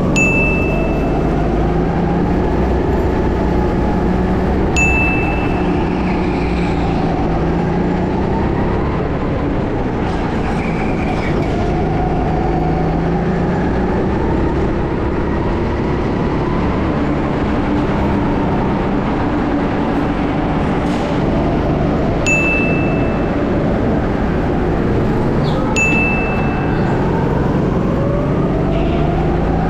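Go-kart engine running under way, its pitch rising and falling as the kart speeds up and slows through the corners. Four times a brief sharp click with a short high ring cuts in.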